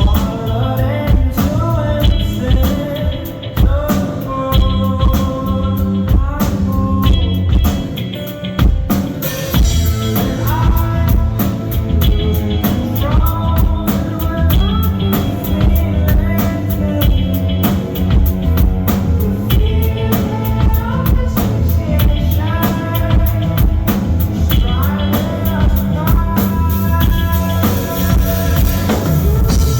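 Live rock band playing a song, with drum kit, bass and a sung melody on top. About nine seconds in, the band comes in fuller and brighter, with cymbals washing over the top.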